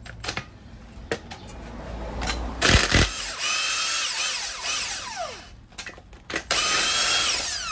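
Handheld power tool run in two bursts of about two to three seconds on the top nut of an old strut, each ending in a falling whine as it winds down; the nut turns with the strut shaft instead of coming loose. Two sharp knocks come just before the first burst and are the loudest sounds.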